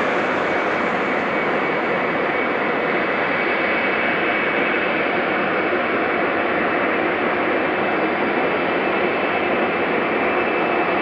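Jet engines of a departing twin-engine Boeing airliner at takeoff thrust: a steady rushing noise with a faint high whine, the highest hiss dulling slightly after a couple of seconds.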